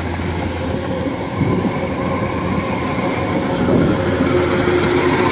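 Kubota DC-105X rice combine harvester running under load, its diesel engine and threshing drum making a steady mechanical drone as it cuts and threshes flattened (lodged) rice, growing slightly louder toward the end.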